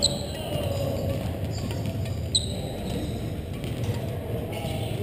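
Steady low hum of a large gym hall, with two short high squeaks about two and a half seconds apart, typical of court shoes on a wooden sports floor.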